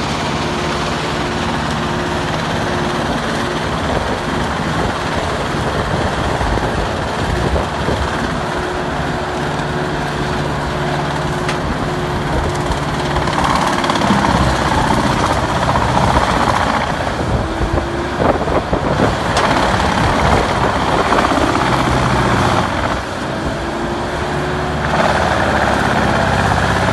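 Truck-mounted, crane-fed wood chipper running steadily under a loud engine drone, with stretches of louder, rougher grinding about halfway through, again a few seconds later and near the end as branches are fed in and chipped.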